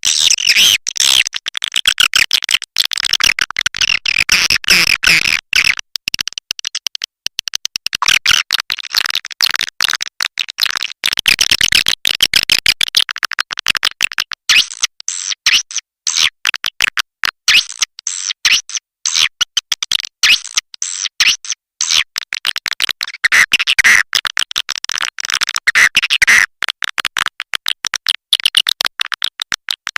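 Swiftlet lure recording: a dense, continuous chorus of rapid twittering chirps and clicks from swiftlets, all high-pitched with almost nothing low. It is a swiftlet calling sound played to draw swiftlets into a nest house.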